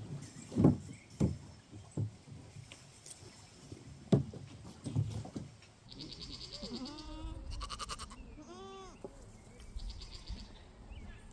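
A few dull thumps in the first half, then goats bleating several times from about halfway through, in short, wavering calls.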